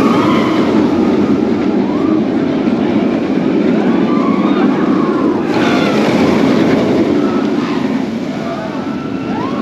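VelociCoaster, an Intamin launched roller coaster, heard from on board the moving train: a loud, steady rush of wind and track noise, with riders' yells rising and falling over it.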